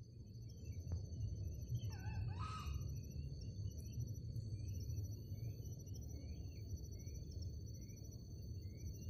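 Outdoor nature ambience: a steady low rumble under a continuous high-pitched insect drone, with repeated short bird chirps and one louder warbling bird call about two seconds in.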